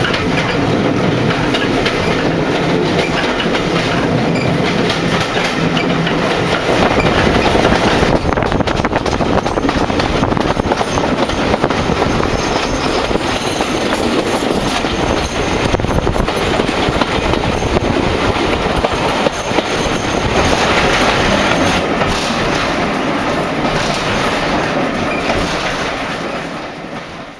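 Heritage passenger train running along the line, with a steady rumble and wheels clattering over the rail joints, heard loud through an opened carriage window. It fades out at the very end.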